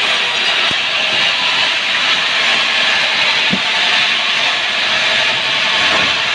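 Sawmill saw cutting a sengon log: a loud, steady hissing noise of the blade going through the wood.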